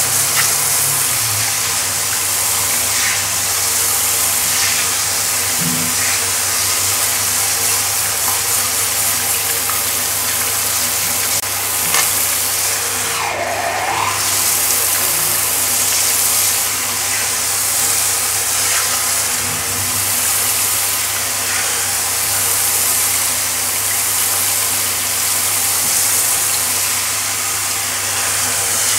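Pet grooming shower head with a brush rim spraying water onto a tiled floor: a steady hiss of running water, with a low hum underneath.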